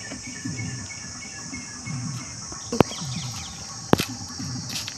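Outdoor ambience: a steady high insect drone with birds calling underneath, broken by two sharp clicks about three and four seconds in.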